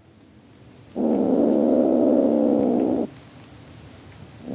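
Young tabby cat giving a low growl for about two seconds while being palpated, a sign that she is in pain and uncomfortable; a second growl starts at the very end.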